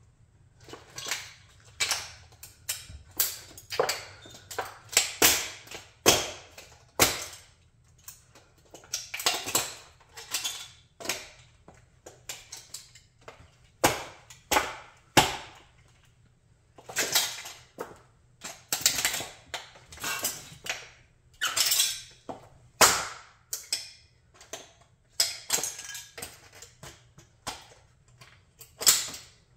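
Model Chrysler 300B car being crushed under a high-heeled shoe: repeated bursts of cracking, snapping and crunching, separated by short pauses, as its body and parts break apart.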